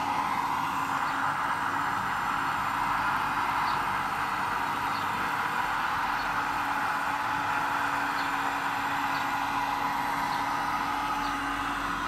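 Radio-controlled model excavator, a Liebherr R 960, working with a steady whine from its motor and hydraulics as it digs and swings.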